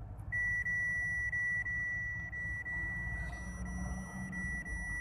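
A continuous electronic beep, one steady high tone that starts just after the beginning and holds unbroken, over the low rumble of the car cabin on the road.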